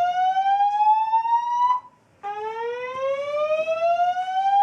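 Fire alarm evacuation tone sounding a whoop: a loud tone rising steadily in pitch for about three and a half seconds, cutting off, and starting again from the bottom after a short pause.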